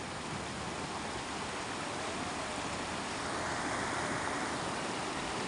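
Sea waves washing and breaking, a wave surge building and fading in the second half.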